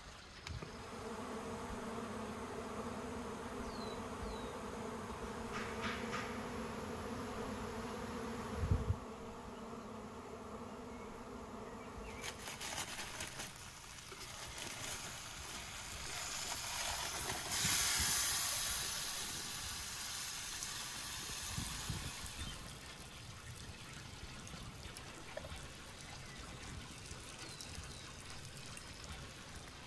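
An insect buzzing steadily for the first twelve seconds or so, with a single thump about nine seconds in. Then a rustling, crinkling noise, loudest about eighteen seconds in, as the aluminium foil over the baked pot is cut and peeled away.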